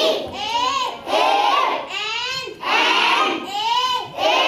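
A group of children chanting a lesson aloud together in a rhythmic sing-song, in short phrases of about a second each, one after another.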